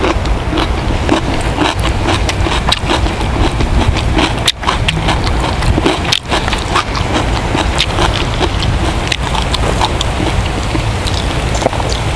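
Close-up eating sounds: chewing and wet mouth clicks, irregular and rapid, with a steady low rumble under them.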